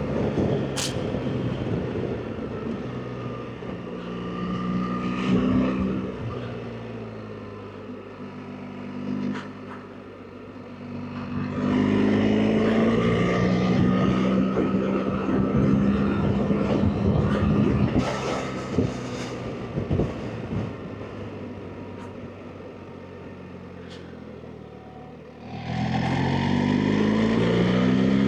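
BMW R 1300 GS Adventure's boxer-twin engine pulling hard and backing off in turn, its pitch climbing under throttle and sinking when the throttle closes, with wind noise. It opens up strongly about twelve seconds in, eases off for a long stretch, then surges again near the end.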